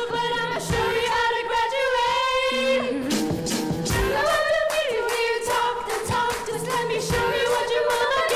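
A group of students singing together into handheld microphones over a sound system, holding long notes in harmony, with short percussive beats underneath.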